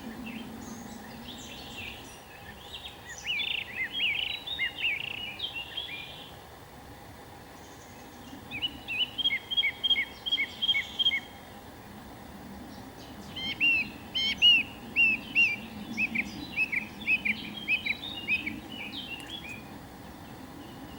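Songbirds chirping in three bouts of quick, repeated high notes, over a steady background hiss.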